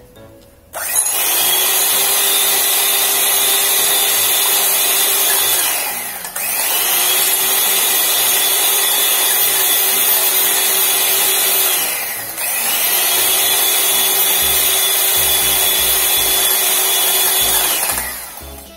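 Electric hand mixer running, its beaters whisking raw eggs in a glass bowl: a loud, steady motor whine. It starts about a second in, dips briefly twice, and stops just before the end.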